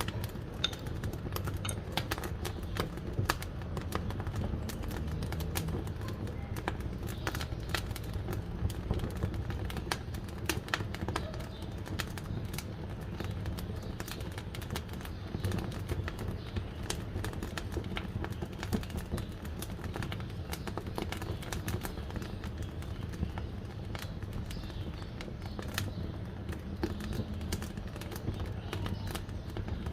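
Wood fire crackling in a wood-burning cookstove: irregular sharp snaps and pops of burning firewood over a steady low rumble.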